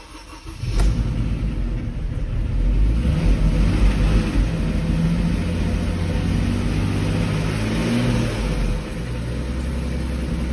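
Mercedes-Benz R-Class six-cylinder petrol engine starting about a second in, revving up, then settling to a steady idle near the end. It starts with the fuel pump relay bypassed by a jumper wire, which shows the no-start is a fuel pump control fault.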